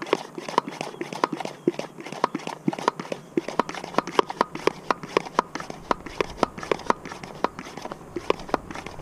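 Hand pump of an AMMO aerator foam sprayer being pumped up, its plunger making a rapid, even series of clicks, about three a second, as the tank is pressurized before spraying.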